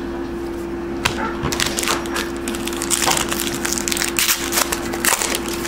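Crinkling and rustling of foil trading card packs and cardboard cards being handled and sorted, in irregular small crackles, over a steady low hum.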